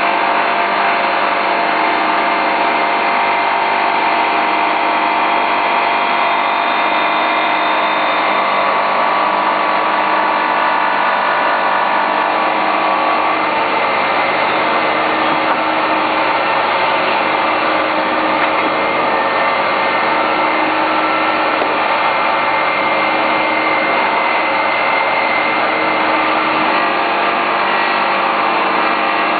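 Bowl cleaning and polishing machine running steadily: a continuous motor whir with several held tones over a dense whoosh.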